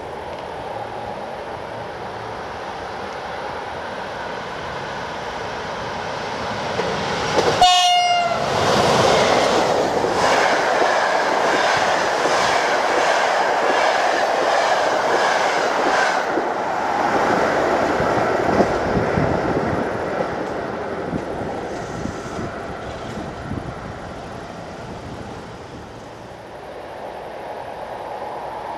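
EP08 electric locomotive and its InterCity coaches passing through a station at speed. A short horn blast about eight seconds in, dipping slightly in pitch, then the loud rushing of the passing coaches with wheels clicking over rail joints, fading away after about twenty seconds.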